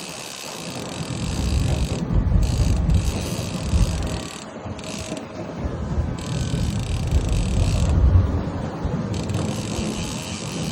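A fishing reel's ratchet clicking fast in spells, stopping and starting several times, over a steady low rumble.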